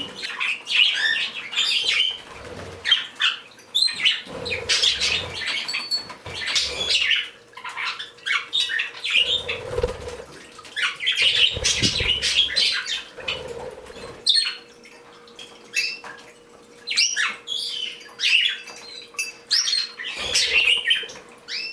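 A flock of pet birds, including a canary and Bourke's parakeets, chirping and calling over one another in short, overlapping calls, with brief bursts of wing flapping as birds fly about the room several times.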